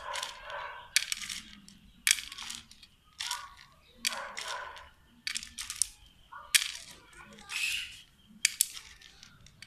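Chopsticks picking small dark beans one at a time and dropping them into a plastic bowl. Sharp clicks of beans and chopstick tips on the plastic come about once a second.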